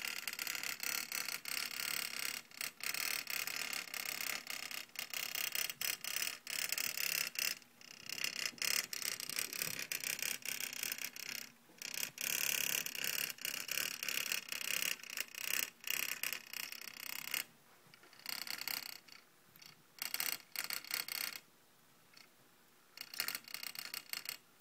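Coil-type putt-putt steam boat buzzing and rattling fast: its mini Altoids tin and Coke-can bottom clatter against the vibrating copper coil, which is heated by an olive-oil flame. The rattle goes patchy in the last third and mostly dies away near the end.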